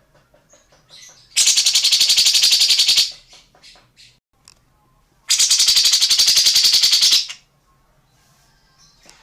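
A bird calling in two loud, rapid rattling trills of about two seconds each, the first a little over a second in and the second about five seconds in, with soft chips between them.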